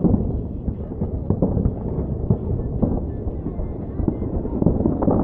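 Aerial fireworks going off in quick succession, many booms and crackles running together into a continuous rumble, growing busier near the end.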